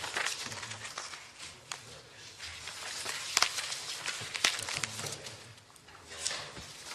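Paper rustling and pages being handled on a desk close to a microphone: irregular crackling with a few sharp clicks and taps, loudest around the middle, over a faint low room hum.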